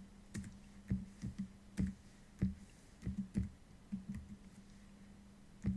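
Computer keyboard keys pressed one at a time: about ten separate clicks at uneven intervals over a faint low hum, as the moves that turn the faces of an on-screen Rubik's Cube are entered.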